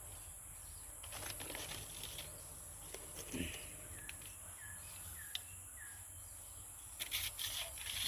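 Steady high-pitched drone of insects, with scattered rustles and clicks about a second in, around three seconds in and near the end. A few short falling chirps sound in the middle.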